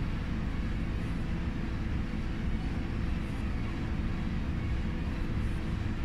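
Steady low rumble of background room noise, even throughout with no distinct knocks or steps.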